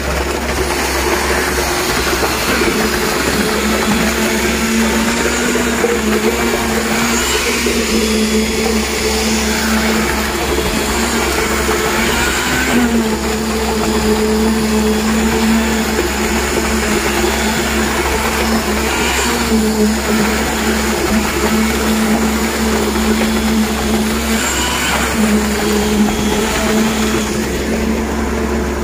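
Electric concrete needle vibrator running, its motor whine dipping in pitch and recovering every few seconds as the poker works through fresh footing concrete, over a steady low hum.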